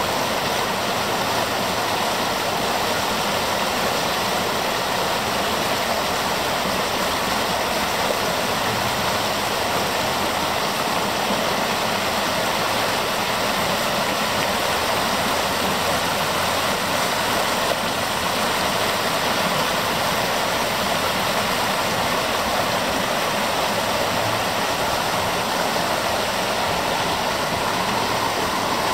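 River water rushing over rocks through a shallow riffle: a steady, unbroken rush.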